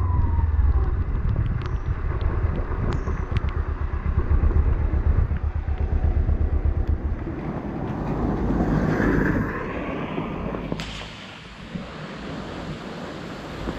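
Motorcycle riding with wind noise on the microphone, a pulsing low rumble under a hiss. About eleven seconds in it drops to a quieter, steady wind hiss.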